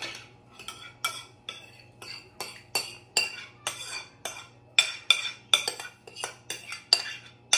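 A spoon clinking and scraping against the inside of a bowl as thick dessert cream is pushed out into a glass dish. It makes a quick, even run of sharp clinks, about four a second, each with a light ring.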